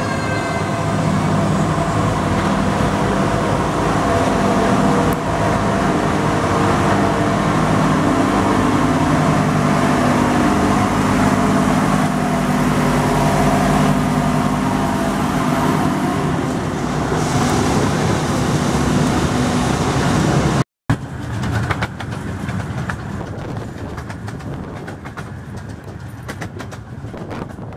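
Diesel locomotive of a miniature railway running steadily alongside the carriage, its engine note echoing in the covered station. After a cut, the train is under way and the carriage's running noise on the track takes over, with quick clicks.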